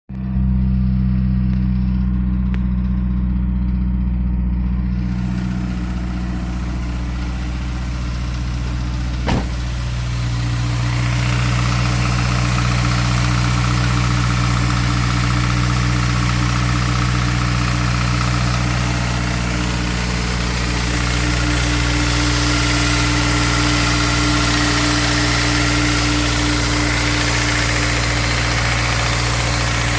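Honda S2000 AP1's F20C four-cylinder engine idling steadily, recorded for the tick/rattle noise it is making. A single sharp click about nine seconds in.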